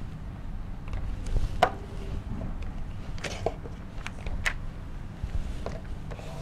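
A few scattered light taps and knocks of hands and paper on a whiteboard chart, over a steady low room hum.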